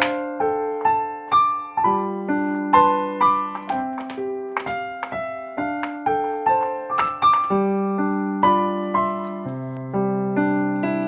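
Solo piano background music: a gentle melody with notes struck about twice a second and left to ring out over lower held notes.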